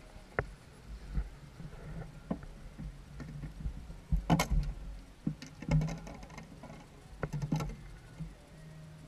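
Small outboard motor idling with a low steady hum, under a few sharp knocks and clatters in the boat; the loudest knock comes a little after four seconds in.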